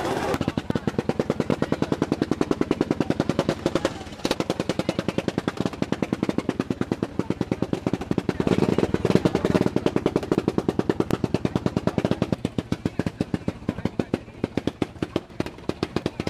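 Racing lawn tractor's engine idling close by: a rapid, even putter, briefly broken about four seconds in and growing less even near the end.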